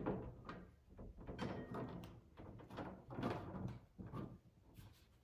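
A rear window panel being handled and worked into a UTV roll cage: a few scuffs, rubs and light knocks of the panel against the cage frame.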